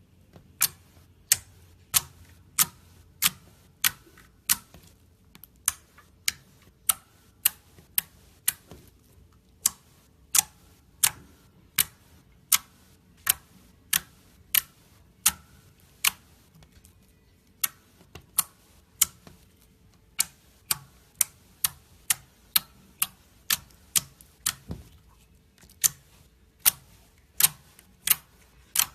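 Slime being worked by hand, making sharp crisp clicks and pops about one to two a second, with brief pauses near the middle.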